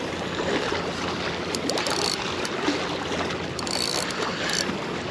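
Steady wash of water and surf, with a fishing reel's ratchet clicking now and then while a black drum is being fought.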